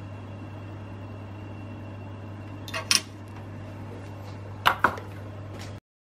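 Small hard clicks of a 3D-printed plastic soldering template and its metal guide pins being handled: two quick pairs of clicks, about three seconds in and near five seconds, over a steady low hum. The sound cuts off suddenly just before the end.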